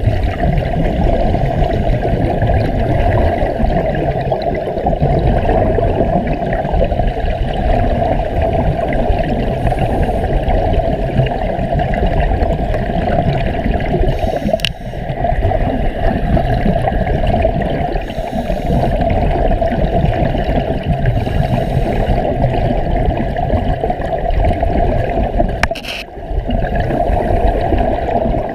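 Steady, muffled underwater rumble of moving water and air bubbles, heard through a camera's underwater housing, briefly dropping away twice.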